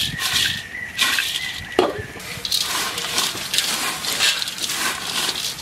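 Thin, crisp fried potato sticks being tossed and mixed by hand in a large aluminium bowl: dry rustling in repeated bursts, with one sharp knock about two seconds in.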